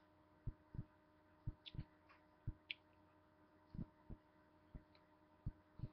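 Near silence: faint room hum with about a dozen soft, irregularly spaced clicks and taps.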